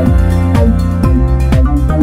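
Background electronic music with a steady beat of about two kick-drum thumps a second.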